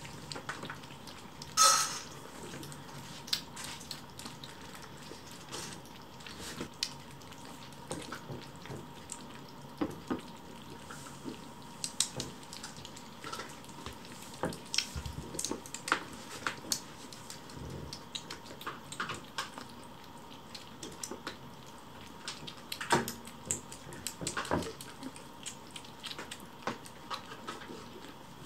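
Kittens eating from small ceramic saucers on a wooden floor: irregular clinks and taps as the saucers are nudged, with wet lapping and chewing. One sharper clink stands out a couple of seconds in.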